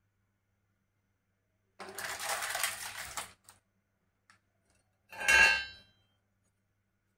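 Rustling of a paper butter wrapper being handled and opened for about a second and a half. This is followed by a couple of light taps and then one short, loud metallic clatter with a brief ring, as a kitchen utensil is set down on the metal tawa.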